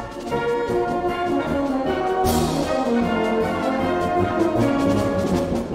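Background orchestral music led by brass, with held notes moving in steps and a bright crash a little over two seconds in.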